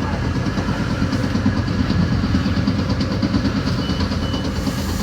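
Steady rumble and clatter of a Metra BNSF commuter train running at speed, heard from inside a passenger car.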